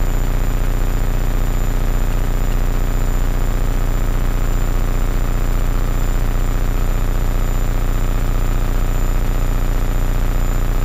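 Homebuilt Hummingbird helicopter's engine and rotor in cruise flight, heard inside the cabin: a steady, unchanging drone with a rapid fine flutter and a thin high whine on top.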